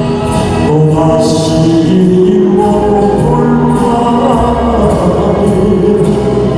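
A male singer sings a Korean trot song live into a handheld microphone over an instrumental accompaniment, the voice carried through the stage PA.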